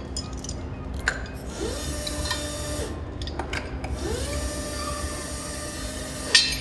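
Electric forklift's hydraulic pump motor whining, rising in pitch as it spins up, holding, then winding down, twice in short bursts as the mast is inched up to take the load. A sharp metal clack near the end.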